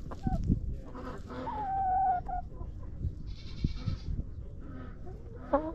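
Domestic hens calling close to the microphone: a loud drawn-out call about a second and a half in, with shorter calls at the start and near the end, and low knocks in between.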